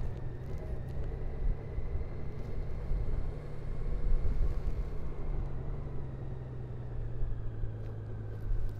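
Honda Gold Wing motorcycle's flat-six engine running at low road speed: a steady low hum with a faint high whine that dips slightly near the end.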